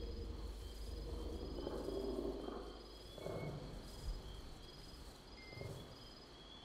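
Faint fantasy forest ambience: evenly spaced, cricket-like insect chirps over a low rumble, with a few low, drawn-out creaks of wood swelling and fading about two, three and five and a half seconds in.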